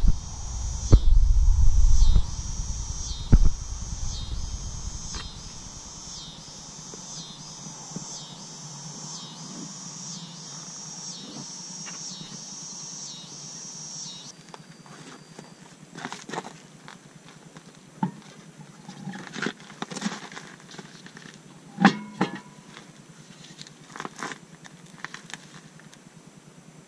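A high, evenly pulsing insect drone for about the first half, which stops abruptly, over a low rumble and a couple of thumps in the first few seconds. Then scattered metallic clicks and knocks as the road wheel is hung on the hub studs and its lug nuts are handled.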